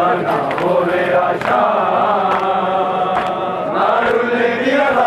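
Crowd of male mourners chanting a noha (Shia lament) together, with sharp slaps about once a second from matam, the rhythmic beating of hands on chests.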